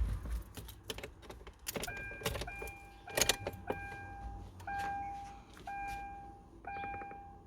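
Car keys jangling and clicking as the ignition key is switched on, then a run of electronic beeps of uneven length and spacing.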